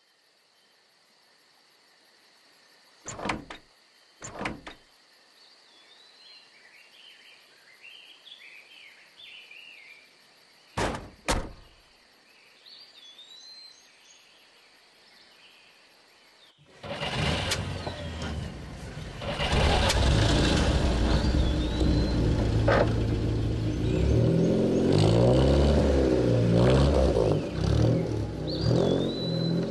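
Birds chirping with two pairs of short thuds of car doors being shut, then an old car's engine starts suddenly a little past halfway and runs loudly, its pitch rising and falling as it revs.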